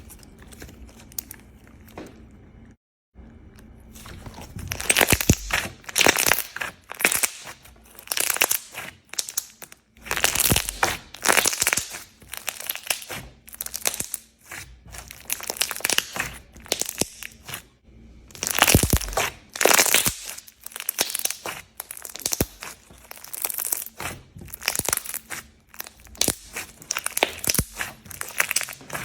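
Slime being squeezed and pressed by hand, giving crunchy, crackling bursts about once a second, starting a few seconds in.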